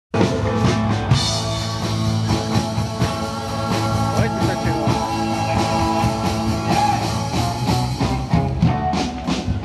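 Rock music playing steadily, with no speech over it.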